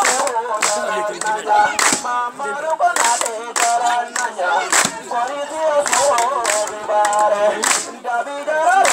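Voices singing a dance song, with sharp claps cracking out at uneven intervals of about one a second.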